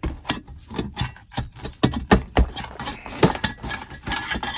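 Irregular knocks, clatters and scraping of hand demolition work: objects and debris being pulled out and handled, several hits a second.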